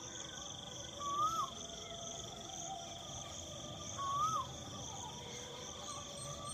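Asian koel calling twice, about three seconds apart, each call a short whistled note that rises and then drops. Under it runs a steady high buzz of insects.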